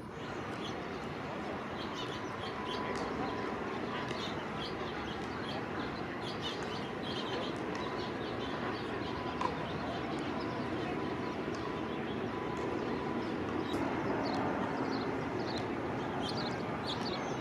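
Small birds chirping again and again over a steady background of outdoor noise.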